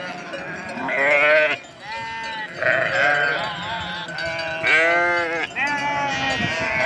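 A flock of sheep bleating, with many loud, overlapping calls one after another.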